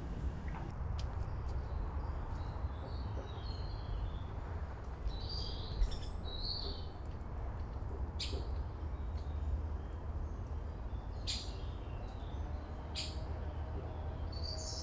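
Wild birds chirping and calling, with a few sharp calls near the middle and toward the end, over a steady low rumble of distant city noise.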